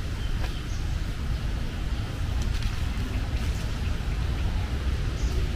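Outdoor ambience: a steady, fluttering low rumble, with a few faint short chirps or ticks higher up.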